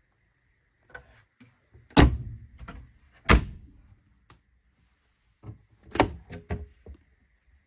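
Wooden cabinet doors knocking shut: two loud, sharp knocks about a second apart. Near the end a wooden drawer is pulled open with a cluster of smaller knocks and clicks.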